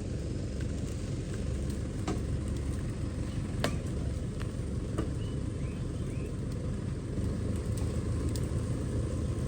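An engine running steadily with a low rumble, with a few sharp knocks, one about two seconds in and two more shortly after.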